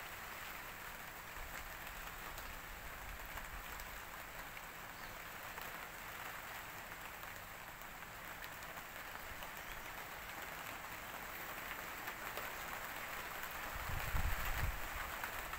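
Steady rain falling, an even hiss that grows a little louder toward the end, with wind gusts buffeting the microphone near the end.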